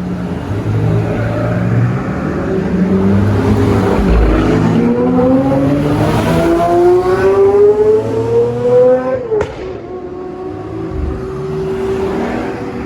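Sports car engine accelerating hard on a race circuit, its pitch rising steadily for about five seconds and then dropping sharply at an upshift, with other car engines running underneath.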